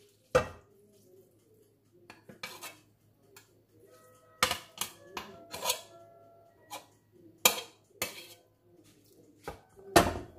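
Stainless steel pot and metal utensils clinking and knocking against a glass baking dish as boiled noodles are tipped and scooped in. There are about a dozen sharp clinks at uneven intervals, some ringing briefly.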